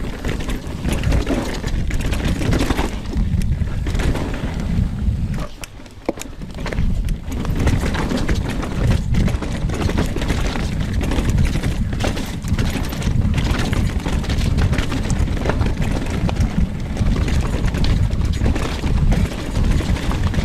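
Commencal Meta AM 29 mountain bike ridden fast down a rough trail: wind buffeting on a chest-mounted camera, tyre noise, and a constant clatter of knocks and rattles from the bike over the terrain. It briefly goes quieter about five and a half seconds in.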